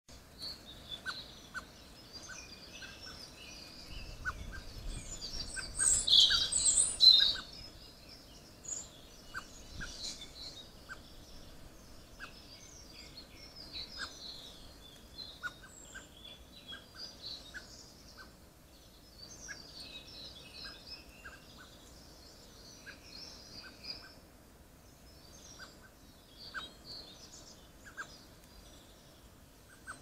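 Garden birds singing and chirping, many overlapping high notes throughout, with a louder burst of sound close by around six to seven seconds in.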